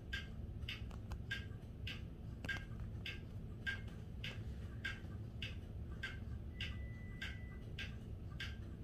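Grandfather clock movement ticking steadily, a sharp click a little under twice a second.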